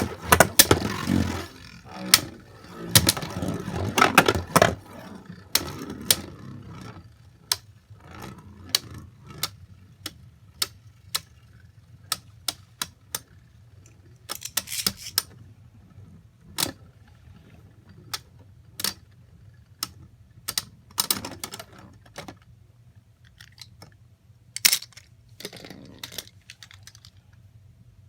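Irregular sharp clicks and a few short clattering rattles of hard plastic Beyblade parts.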